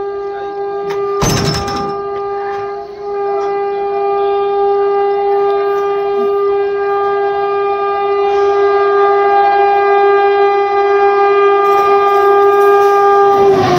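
Indian Railways locomotive horn held in one long steady blast for almost fourteen seconds, growing louder as the overtaking train approaches. Near the end its pitch drops as it passes, and the rush of the passing train takes over. A sharp knock sounds about a second in.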